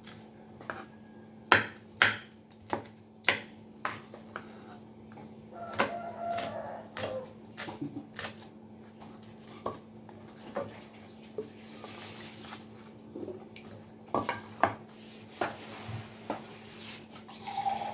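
Kitchen knife slicing red chilies on a wooden cutting board: irregular sharp knocks of the blade striking the board, over a steady low hum.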